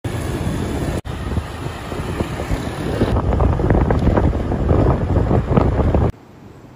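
Loud, steady rushing roar of a waterfall, heavy in the low end, with wind buffeting the microphone. It breaks off briefly about a second in, changes about three seconds in, and drops suddenly to a faint hiss near the end.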